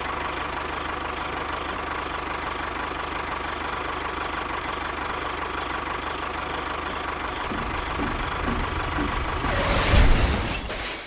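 A motor running steadily with an engine-like chugging, growing louder about ten seconds in, then stopping abruptly.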